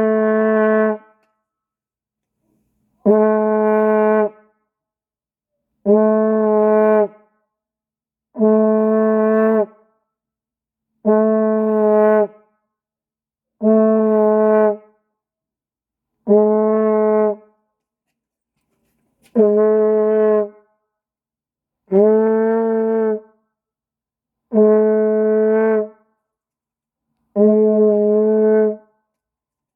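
A horn blown in a series of separate toots. Eleven short blasts of the same steady, low note, each a little over a second long, come about every two and a half seconds, counting down twelve horn blows.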